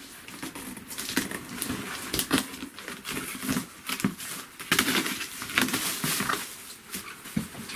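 Cardboard shipping box being handled and opened by hand: irregular rustling, scraping and tapping of cardboard and packing tape.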